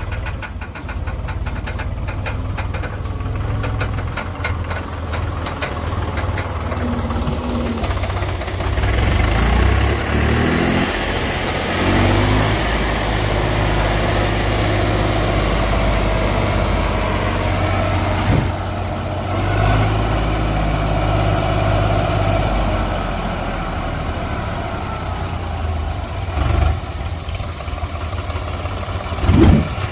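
Swaraj 834 XM tractor's three-cylinder diesel engine running as it tows a loaded soil trolley over soft ground, the revs rising and falling. A short louder burst near the end.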